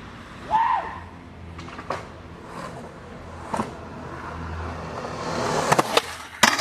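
Skateboard wheels rolling on concrete, growing louder, with sharp clacks of the board: single clicks about two and three and a half seconds in, then three hard cracks in quick succession near the end, as the board is popped and lands. A short high-pitched sound about half a second in.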